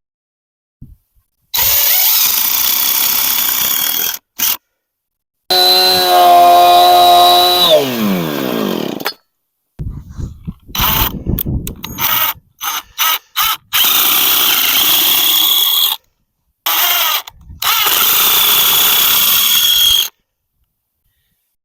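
A handheld power drill running in several short bursts separated by abrupt cuts. In one burst the motor holds a steady pitch, then winds down in pitch as the trigger is released.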